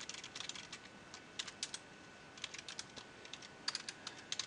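Quiet keystrokes on a computer keyboard, typed in quick irregular runs.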